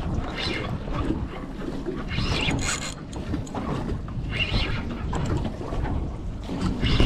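Boat moving slowly at sea with a steady low rumble. Water splashes and surges in hissy bursts about every two seconds, as a landed sailfish is dragged alongside the hull.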